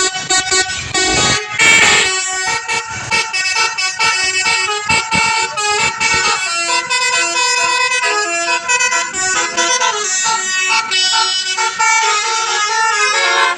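Telolet basuri, a multi-trumpet air horn set with 12 roof-mounted trumpets, playing a fast melody of short horn notes that jump in pitch. From about halfway it settles into longer, lower held notes. There is a brief rush of noise about two seconds in.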